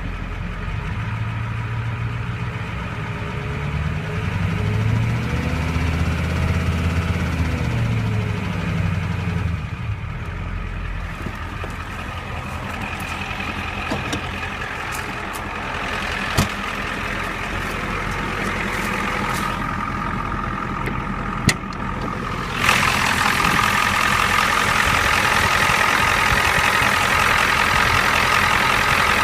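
Warmed-up diesel engine idling with a little tick at idle; the owner hears it as a knock tied to the glow plugs. About five seconds in, the engine speed rises and falls briefly. Two sharp clicks sound later, and near the end the engine suddenly gets louder and brighter.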